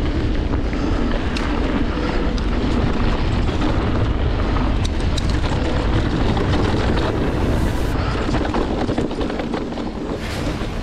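Wind rushing over the microphone and the rumble of an electric mountain bike's Maxxis Assegai tyres rolling over a dirt trail, with scattered short clicks and rattles from the bike. The sound is steady and eases slightly near the end.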